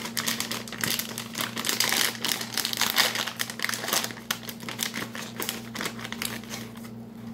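Hen of the Woods kettle cooked potato chip bag crinkling as it is torn open and pulled apart. A dense run of crackles that thins out over the last couple of seconds.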